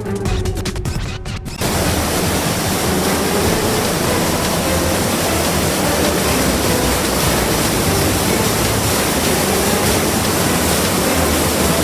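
Electronic music that cuts off suddenly about a second and a half in, followed by a loud, steady rush of water.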